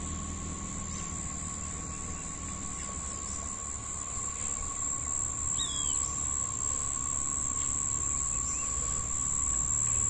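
Insects droning steadily at two pitches, one high and piercing, one lower, with a low rumble beneath. A bird gives a short falling chirp about six seconds in and a fainter one shortly after.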